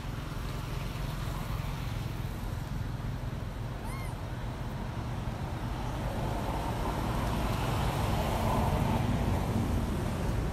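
Steady low rumble of engine traffic, swelling in the second half as a vehicle passes. A single short high chirp comes about four seconds in.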